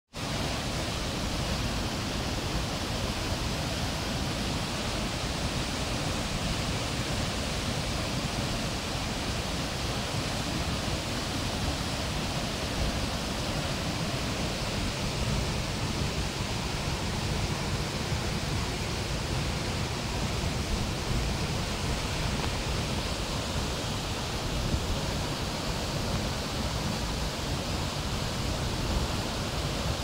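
A large waterfall in full flow: heavy water pouring down and crashing into its plunge pool, a dense, steady rushing noise with a deep rumble underneath.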